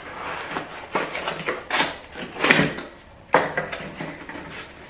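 Cardboard packaging being handled to unpack a pot: a box's flaps and inner cardboard insert being pulled and rubbed, giving a run of rustles and scrapes, several of them sharp.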